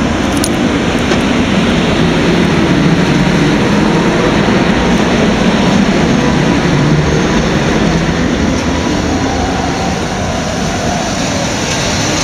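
ET22 electric locomotive hauling a passenger train away at low speed, the locomotive and then the coaches rolling past with a steady noise of wheels on rail.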